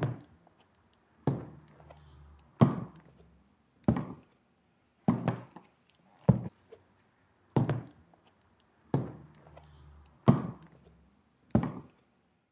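Slow, heavy footsteps going down a staircase, ten evenly spaced thuds about a second and a quarter apart.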